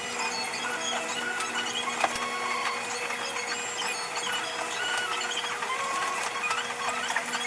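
Everyday work sounds sped up five times: a busy jumble of short high chirps and clicks over a steady hum, with one sharp click about two seconds in.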